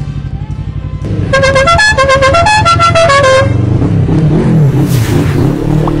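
Multi-trumpet musical 'tolelot' horn on a Suzuki Inazuma 250 plays a quick tune of about a dozen short stepped notes, starting about a second in and lasting about two seconds. Under it the bike's parallel-twin engine runs, then revs with a wavering pitch near the end.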